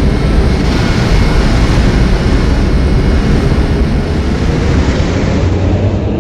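Mexico City Metro NM-79 rubber-tyred train running, a loud steady rumble with faint whining tones above it.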